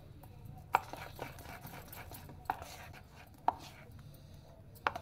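A metal spoon stirring thick gram-flour batter in a stainless steel bowl, clinking sharply against the bowl four times, with soft wet stirring between the clinks.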